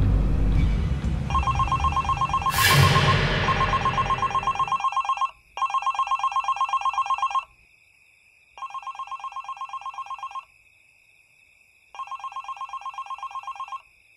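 Mobile phone ringing with a fast trilling ring tone, in bursts of about two seconds with short pauses between. Over the first few seconds a loud boom hit from the horror score, and a second one about two and a half seconds in, fade away under the ringing.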